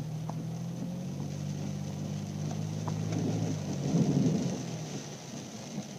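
FJ SUV's engine running with a steady low hum while driving through floodwater, with a louder swell of rumbling, rushing water about four seconds in that fades away.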